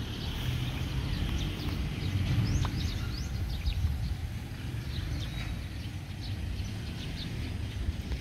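Birds chirping, many short high calls scattered throughout, over a steady low rumble.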